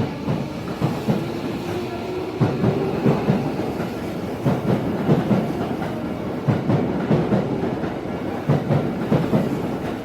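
Electric commuter train running with rapid, irregular clatter of wheels over rail joints. Its traction motor whine rises in pitch over the first few seconds as the train picks up speed.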